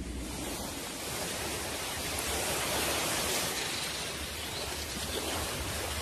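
Surf washing on a shore: a steady rushing noise that swells slightly in the middle and eases off again.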